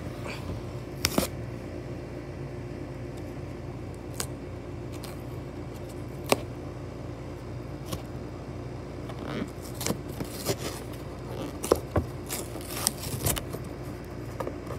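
Hands opening a cardboard toy box: scattered scrapes, taps and tearing of the cardboard, busier in the second half, over a steady low hum.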